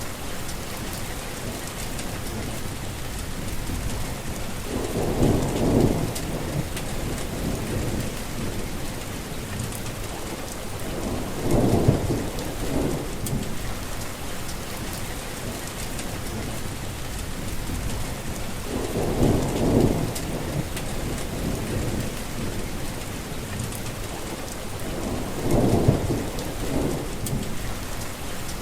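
Heavy rain falling steadily, with four low rumbles of thunder rising and fading at roughly six-to-seven-second intervals.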